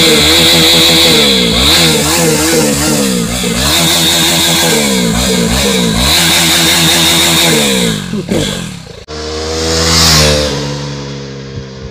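KTM Duke 390's single-cylinder engine revved several times while standing, the pitch climbing and falling back in swells about every two seconds. After a sudden cut about nine seconds in, the motorcycle passes by at speed, its engine note loudest about a second later and dropping in pitch as it rides away.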